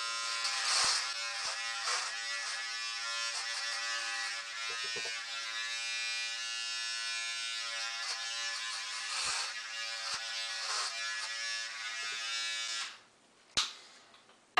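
Remington electric beard trimmer buzzing steadily as it cuts through beard hair, with a few light knocks against the face. The buzz cuts off near the end and is followed by a single sharp click.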